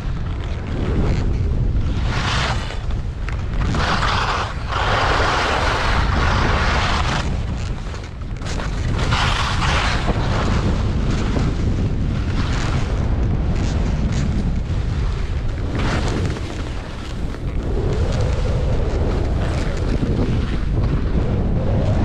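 Wind buffeting a moving microphone as a low, steady rumble, with skis carving down firm groomed snow: a hissing scrape swells up at each turn, about half a dozen times.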